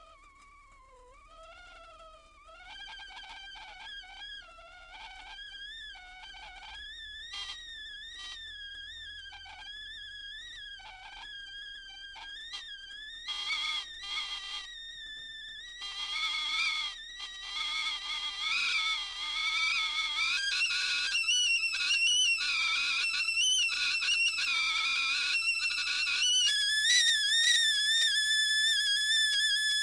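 Tea kettle coming up to the boil and starting to whistle. A faint, wavering whistle rises in pitch and gets louder, with bursts of rushing hiss joining in about halfway. Near the end it settles into a loud, steady, warbling whistle.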